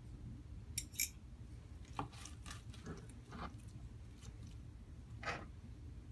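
Forks shredding a tender smoked chuck roast on a plastic cutting board: scattered light clicks and scrapes of the tines against the board, with soft tearing of the meat.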